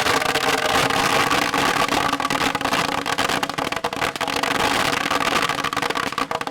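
Black Cat firecrackers going off by the hundreds inside a glass aquarium tank: a dense, continuous crackle of rapid pops that cuts off suddenly at the end.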